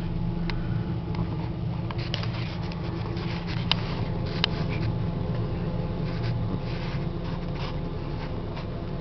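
Steady low engine hum heard from inside a pickup truck's cab, with scattered light ticks over it.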